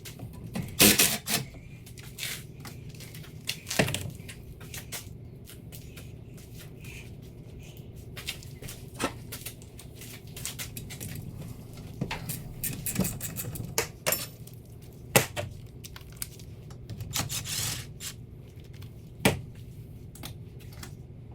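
Hand-tool work on a metal machine: irregular clinks and knocks of tools and bolts, with some scraping, over a steady low hum.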